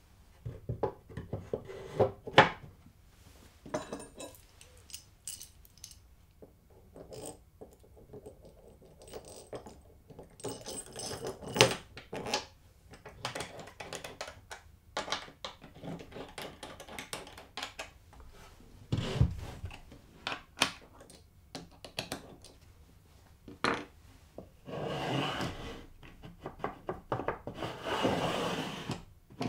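Plywood jig parts being handled and fitted: scattered wooden knocks and clinks of metal hardware (a bolt and nut and a pillow-block bearing), then a block sliding and scraping along the jig's slot for several seconds near the end.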